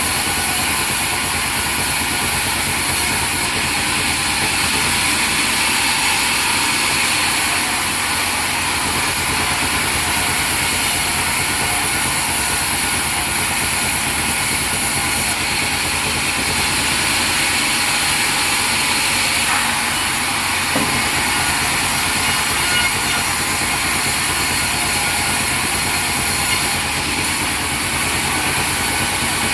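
Sawmill machinery running steadily with a constant loud mechanical drone.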